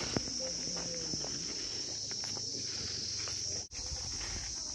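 Insects droning steadily at a high pitch, broken off for an instant about three and a half seconds in.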